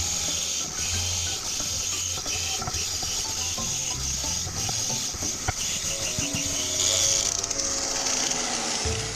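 Angle grinder with a cup brush scrubbing rust off a scooter engine's flywheel: a steady, harsh hiss of the brush on metal.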